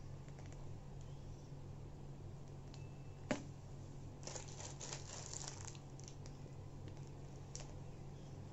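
Disposable piping bag crinkling as it is squeezed to pipe whipped-cream rosettes, a quick run of crackles from a little past the middle. There is one sharp click just before, over a low steady hum.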